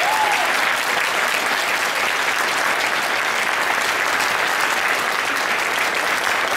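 Audience applauding steadily, a roomful of people clapping at the close of a speech.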